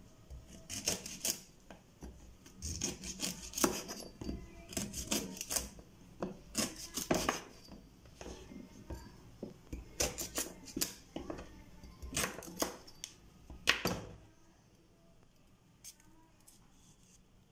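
Kitchen knife cutting moringa drumstick pods on a wooden chopping board: an irregular run of sharp chops and scrapes, the blade knocking on the board about once or twice a second. The cutting stops about three-quarters of the way through, leaving only faint room sound.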